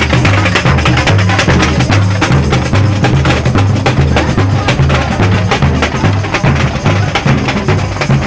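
Street percussion band playing snare drums and large bass drums: a dense, fast rhythm of drum strokes over a low, pulsing bass.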